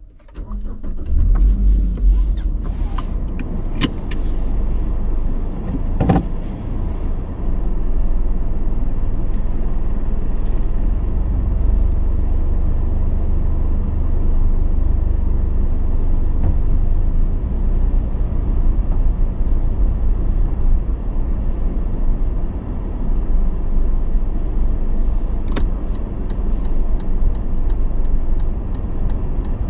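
Toyota Land Cruiser Prado driving slowly: a steady low engine and road rumble, with a few short clicks and knocks, the strongest about six seconds in.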